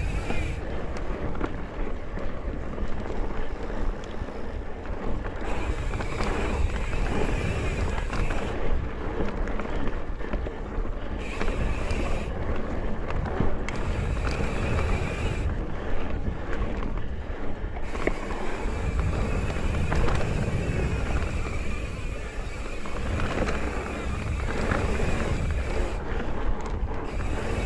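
Mountain bike rolling along a dirt singletrack: a steady rumble of tyres over the trail with small rattles and clicks from the bike, and wind on the microphone.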